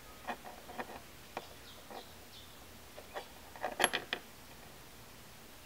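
Light, scattered clicks and taps of a bare die-cast metal toy car body being handled and turned in the fingers against a work surface, with a quick cluster of sharper clicks a little under four seconds in.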